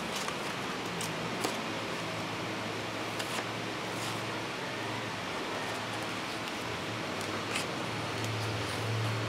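Paper and a sanding sheet rustling as they are handled, with a few light taps and clicks over a steady low hum.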